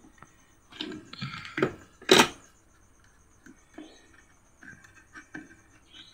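Clicks and knocks of a mains plug and cable being handled and pushed into a socket, the loudest a single sharp click about two seconds in, followed by a few light ticks.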